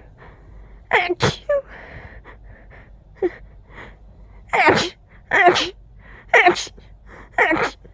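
A person in a sneezing fit: two sneezes close together near the start, then four strong sneezes about a second apart, with quick breaths in between.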